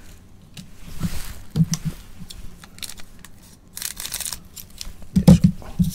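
Scissors cutting open the foil wrapper of a Topps baseball card pack, the wrapper crinkling, with the brightest crinkly cut about four seconds in amid soft rustling of cards being handled.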